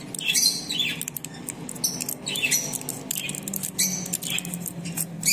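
Vitamin E capsules being pressed out of a foil blister pack, the foil and a plastic bag crinkling, while small parrots chirp in the background.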